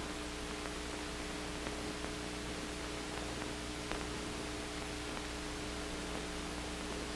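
Steady hiss with a faint hum and a few faint ticks: background noise of an old film soundtrack, with no other sound.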